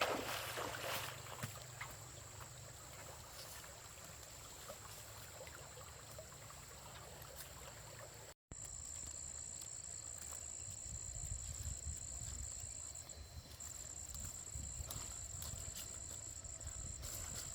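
Faint background ambience: a steady high-pitched whine over a low rumble and hiss, cutting out briefly a little over eight seconds in.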